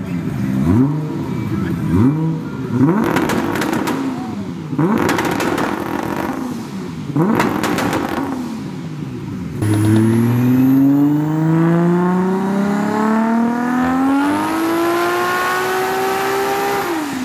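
Mk4 Toyota Supra with an aftermarket exhaust, run on a chassis dyno: a series of quick revs, each note rising and falling, with a few sharp cracks among them. About ten seconds in, a full-throttle dyno pull, the engine note climbing steadily for about seven seconds and then dropping off near the end.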